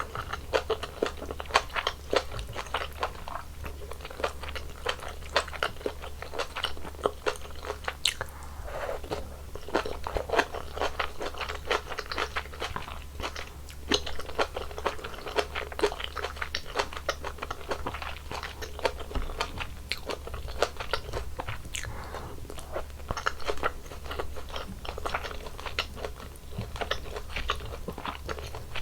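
Close-miked eating of mala tang: a steady, irregular run of wet chewing, biting and crunching with mouth clicks.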